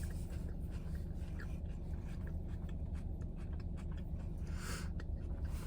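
Small clicks and scratchy rustles of someone eating a sandwich, over a steady low hum in a car's cabin.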